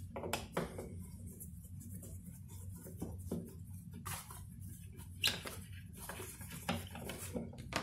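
Screwdriver undoing the screws of the Yamaha GT-750 turntable's bottom panel: small scattered clicks and scrapes of the screws turning, with a few sharper taps as they are handled.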